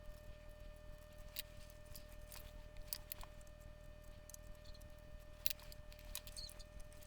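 Sparse sharp clicks and small taps of hand tools being handled while a power switch is desoldered from a circuit board, over a faint steady electrical hum.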